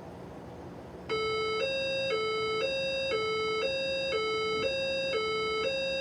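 Fire alarm voice evacuation system sounding its two-tone alert signal, a steady tone switching between a higher and a lower pitch every half second, starting about a second in. This signal tone indicates a report of an event in the building that is being verified.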